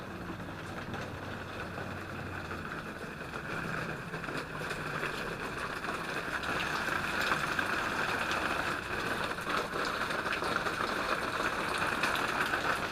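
Small waterfall of seep water falling steadily, with many small drips spattering on the surface below. It grows a little louder about four seconds in.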